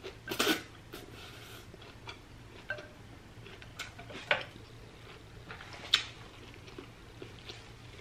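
Close-up mouth sounds of eating pho: a short wet slurp of rice noodles about half a second in, then chewing with a few brief sharp clicks and smacks spread through the rest.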